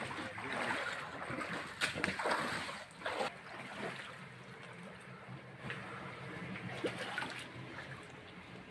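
Floodwater splashing and trickling around an inflatable rescue boat, with a few sharp knocks; after about three seconds it drops to quieter clicks and handling noise over a low steady hum.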